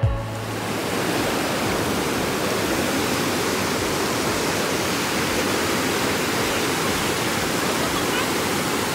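Swollen river water rushing over low rock ledges and through white-water rapids: a steady, unbroken rush of water.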